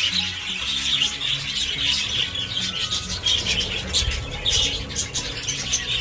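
A group of budgerigars chattering and chirping in a continuous stream of short, high calls, with steady background music underneath.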